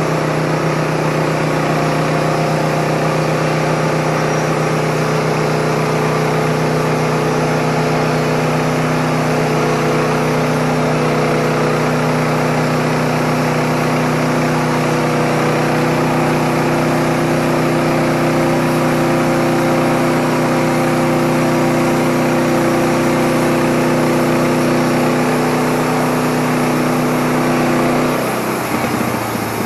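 Wood-Mizer LT15 portable band sawmill sawing through a dry eastern red cedar log, its engine running at a steady pitch under load. Near the end the engine slows and its pitch drops as the head reaches the end of the cut.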